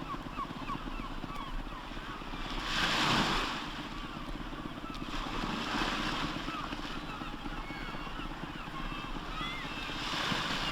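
Sea waves washing and breaking on the shore, swelling into louder surges about three seconds in, again near six seconds and near the end. A scatter of short, high chirps runs through the wash.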